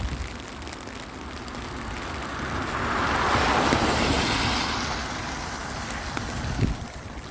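A vehicle passing on a wet road, its tyre hiss swelling to a peak in the middle and fading away, over steady rainfall.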